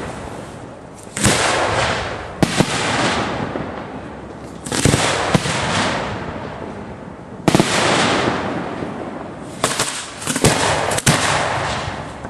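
Fireworks fired from ground mortar racks at close range: several sharp launch reports, each followed by a crackling hiss that dies away over a second or two.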